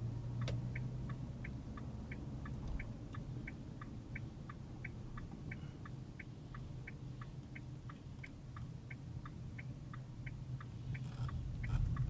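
Car's turn-signal indicator clicking in an even tick-tock rhythm, about three clicks a second, starting about half a second in and stopping near the end, over the steady low hum of the engine and road.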